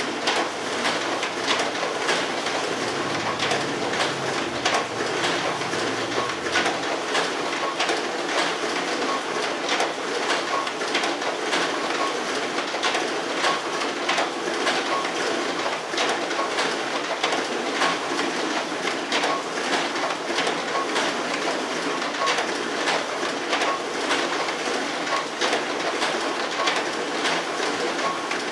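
Two office copiers' automatic document feeders running together, pulling sheets through for double-sided scanning: one is a reversing auto-duplex feeder that flips each page, the other a single-pass feeder that scans both sides at once. The sound is a steady mechanical whir with a dense run of rapid, irregular clicks and paper rustle as the pages feed.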